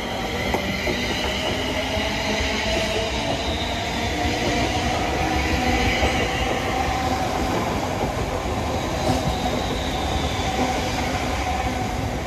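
Train running past at close range: a steady rumble of wheels on track, with a high whine over it.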